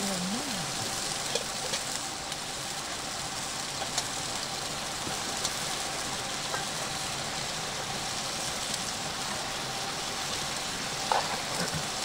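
Food frying on a large iron griddle over a campfire: a steady sizzling hiss with a few small pops.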